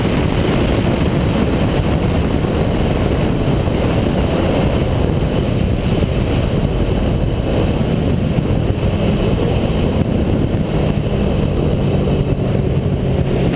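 Kawasaki Z750 motorcycle engine running with a loud, steady exhaust rumble.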